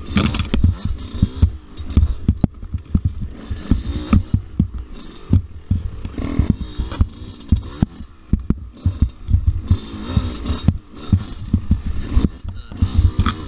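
Dirt bike engine running, heard close up from the bike, with frequent low thumps and sharp knocks as the bike jolts over a rough woods trail.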